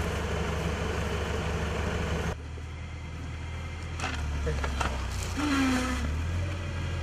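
Tractor engine idling with a steady low hum. About two seconds in the sound drops and changes abruptly; after that the engine hum goes on more quietly, with faint distant voices.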